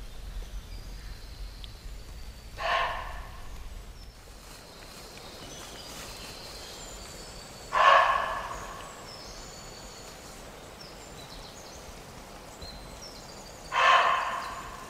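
Muntjac deer barking: three loud single barks about five seconds apart, each with a short echo.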